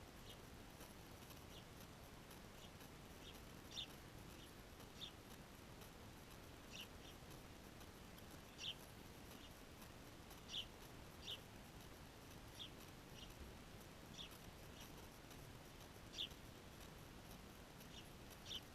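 Small birds giving faint, short, high chirps every second or two against a quiet background hiss.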